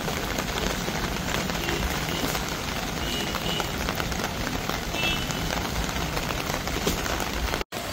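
Steady rain falling, an even hiss with no single sound standing out.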